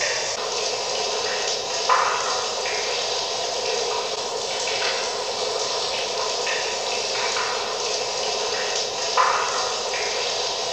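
Steady rush of running, trickling water, briefly louder twice.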